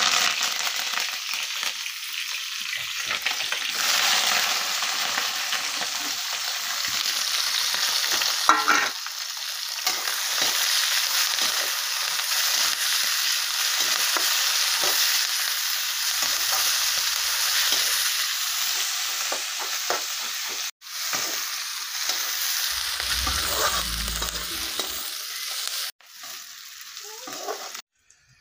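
Sliced onions and green chillies frying in hot oil in a kadai, a steady sizzle, stirred with a metal spatula. The sound breaks off abruptly twice.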